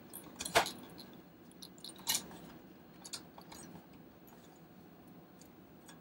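Light clicks and taps of metal and plastic as the Mac Mini's inner chassis, with its optical drive, is handled and fitted back into the plastic case. Two sharper clicks come about half a second and two seconds in, then fainter scattered ticks.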